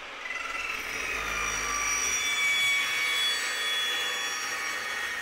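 Fein Slugger 14-inch carbide-tipped cold saw cutting through 3-inch, 1/8-wall 6061 aluminium tube. A steady cutting hiss carries a high metallic ringing, and the cut builds up about a second in.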